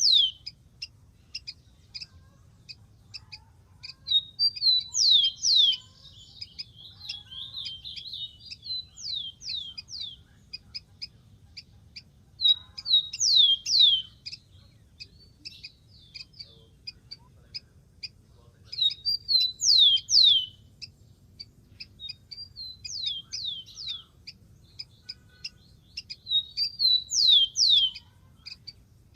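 Rufous-collared sparrow singing: five short songs, each a few whistled notes ending in steeply falling slurs, with scattered short chips between them.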